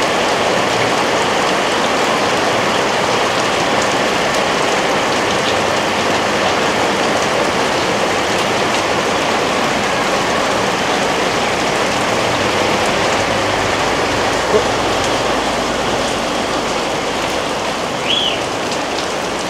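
Heavy tropical-storm rain falling steadily, a dense, even hiss of downpour. A short, high rising chirp sounds near the end.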